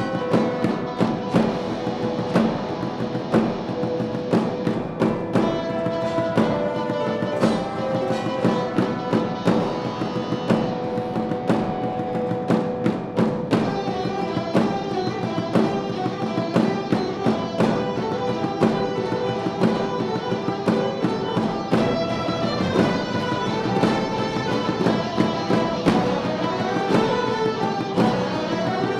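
Wind ensemble playing a Christmas song live, sustained pitched chords over a steady beat of percussion strikes.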